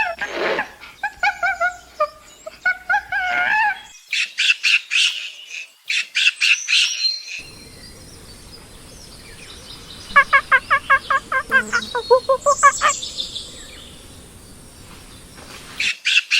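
Chimpanzee calls: pitched, wavering squeaks and cries, then a quick run of sharp high calls, and later a rhythmic series of hoots at about five a second that drops lower at the end.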